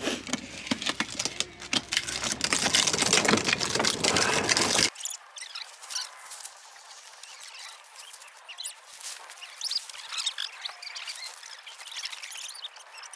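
Loud rustling and clattering of camping gear being handled for about five seconds. After an abrupt cut comes a quieter, thin stretch of light fabric-like rustles and faint high chirps while a dome tent is being put up.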